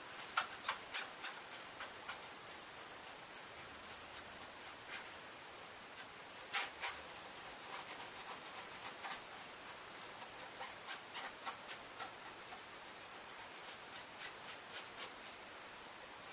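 Cloth towel rubbing and buffing a plastic headlight lens, a soft steady scrubbing hiss broken by scattered light clicks and ticks, some in quick little clusters.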